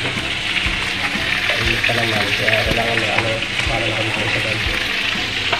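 Fish frying in hot oil in a pan, a steady, even sizzle.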